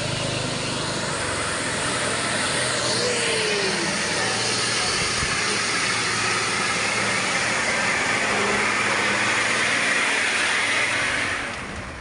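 Heavily loaded truck driving past, its engine running hard under load. The noise swells slightly, then fades away near the end as the truck moves off.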